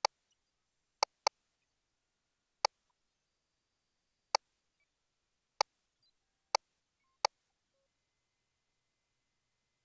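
Sharp single clicks from a GE Voluson ultrasound machine's control panel as the measurement calipers are set on the fetal head: eight clicks at irregular intervals, two close together about a second in, the last about seven seconds in.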